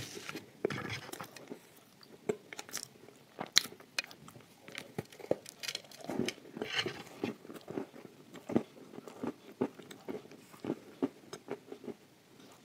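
Close-up biting and chewing of a hard slab of edible clay spread with chocolate paste: irregular dry cracks and crunches, with a few louder crunches along the way.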